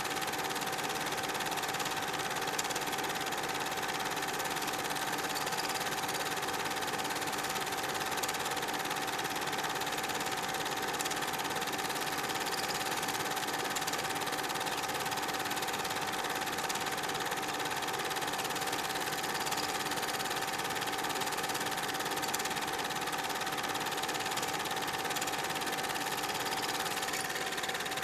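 Super 8 film projector running: a steady mechanical whir with a constant mid-pitched tone, unchanging throughout.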